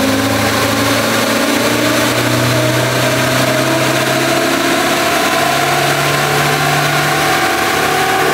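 A van's engine running under load on a chassis dynamometer during a slow power pull, its revs climbing steadily.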